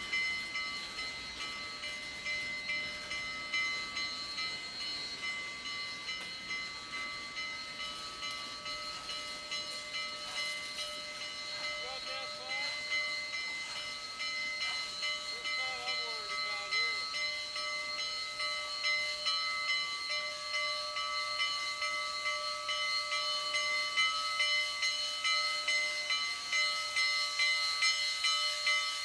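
Union Pacific 844, a 4-8-4 steam locomotive, standing with steam hissing and a steady whistling whine, pulsing in a regular beat about once or twice a second and growing louder toward the end.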